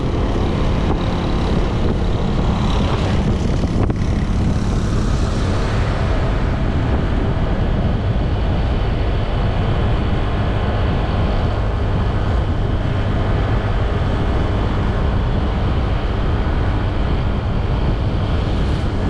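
Wind rushing over the microphone of a camera riding on a moving motorcycle, a steady low rumble, with the motorcycle's engine droning underneath at a constant cruising speed.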